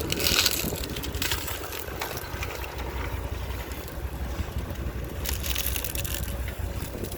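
An off-road 4x4's engine running low under load on a steep climb. Bursts of crunching come just after the start, again about a second and a half in, and again past the five-second mark.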